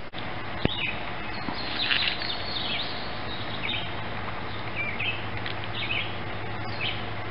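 Songbirds chirping and calling repeatedly over a steady low hum, with one sharp click near the start.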